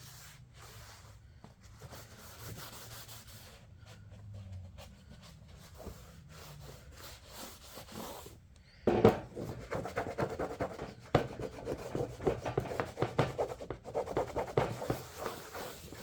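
A rag wiping excess Armor All protectant off a plastic mower grass chute: faint rubbing at first, then brisk, louder rubbing strokes from about nine seconds in.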